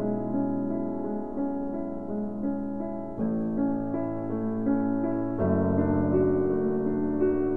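Slow background piano music of held chords, the harmony changing about three seconds in and again about five and a half seconds in.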